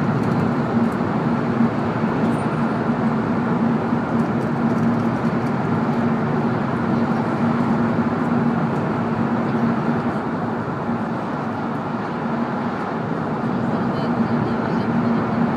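Cabin noise inside a moving W7 series Shinkansen: a steady rush of running noise with a low hum underneath.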